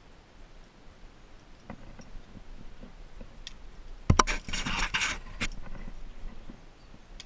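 Handling noise on a body-worn camera: a sharp knock about four seconds in, then a burst of scraping and rustling close to the microphone as the belayer moves, after a few faint clicks.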